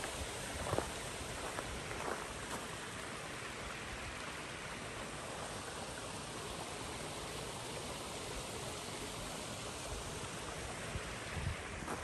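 Running water of a creek, a steady rushing hiss. There are a couple of brief crunches about one and two seconds in.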